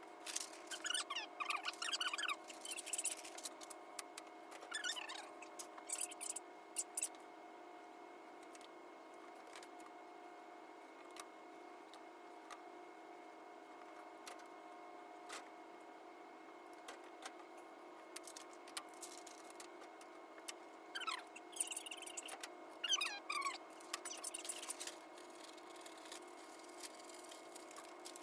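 Classroom audio played back at eight times normal speed. Fragments of voices turn into short, high, squeaky chirps in two clusters, at the start and about three-quarters of the way through, over a steady faint hum.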